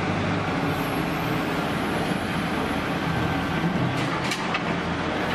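Komatsu WA470 wheel loader's diesel engine running steadily under load as the bucket is raised and emptied into a railway wagon, with a few short knocks about four seconds in.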